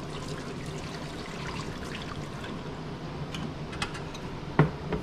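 Hot water being poured off canning lids into a stainless steel sink, a steady trickle and splash. A few light clicks come late on, and a sharp metal knock near the end.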